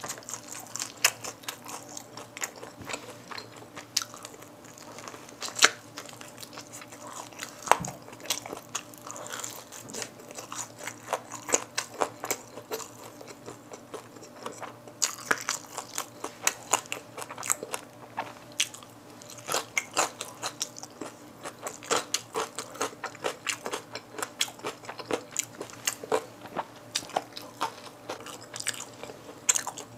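Close-miked biting and chewing of spicy-glazed Kyochon Red Combo fried chicken drumsticks: a dense, irregular run of crisp crunches and crackles from the coating, with softer chewing between bites.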